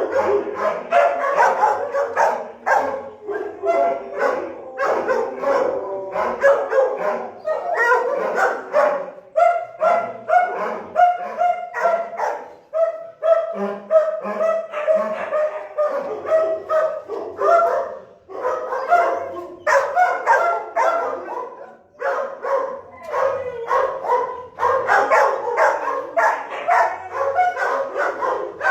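Many dogs barking at once in shelter kennels, a continuous din of overlapping barks and yips.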